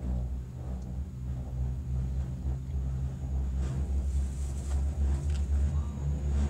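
Steady low rumble and hum of a cable car gondola travelling along its cable, heard from inside the cabin, with a few faint clicks in the second half.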